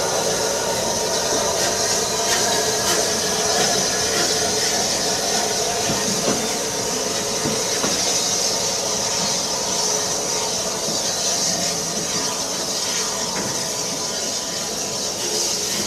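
Steam locomotive standing at rest and hissing steam steadily, while railway coaches move off over the points with a high squeal from their wheels.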